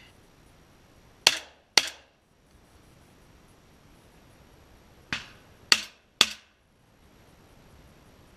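Shotgun fired five times: two shots half a second apart, then a few seconds later three more in quick succession, the first of these three fainter.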